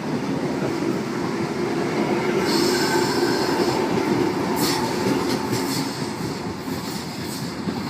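Sydney Trains Tangara electric train running along the platform, a steady rumble of wheels and motors, with a high-pitched wheel squeal about two and a half seconds in that lasts about a second.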